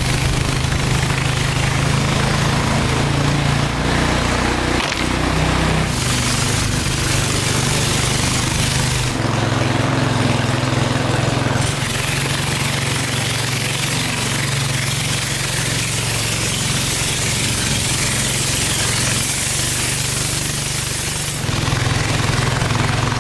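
Engine of a wooden river boat running steadily under way, with a constant hiss of water and wind over it; the engine's pitch shifts a little a few times.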